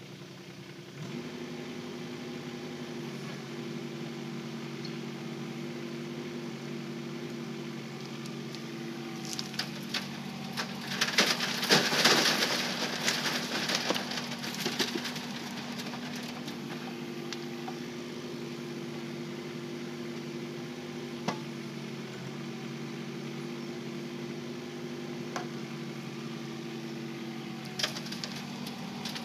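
Diesel engine of a Kubota K008-3 micro excavator running steadily, its note stepping up about a second in. In the middle comes a loud rattle and clatter lasting several seconds, from stony soil being dumped and shaken through a screen, with a few more knocks near the end.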